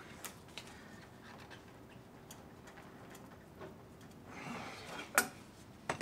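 Faint scattered clicks and ticks of metal and wood as prying pressure is put on a stuck, sealant-bonded engine part. A short breathy rush comes a little past four seconds in, then one sharp click.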